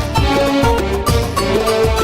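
Background music with a steady, driving beat and melodic instruments.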